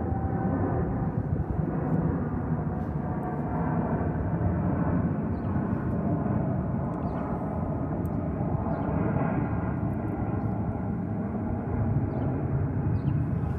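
The four jet engines of a Boeing 747-400 freighter, a steady loud rumble with faint whining tones in it.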